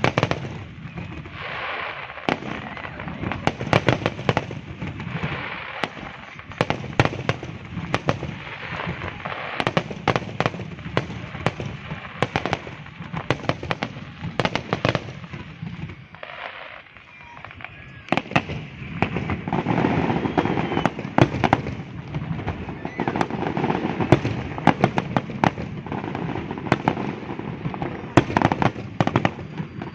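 New Year fireworks display: a continuous run of bangs and crackling, with crowd voices underneath. It thins to a short lull a little past halfway, then comes back in a denser barrage.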